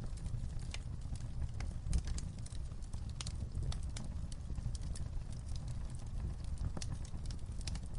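Wood fire crackling: irregular sharp pops and snaps, several a second, over a low steady rumble of flame.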